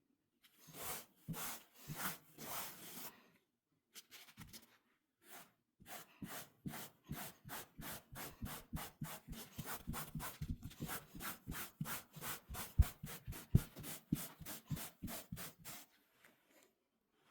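Hand-worked rubbing strokes across a surface to lift pet hair without a vacuum. A few slower strokes come first, then a quick, even run of about four strokes a second that lasts roughly ten seconds.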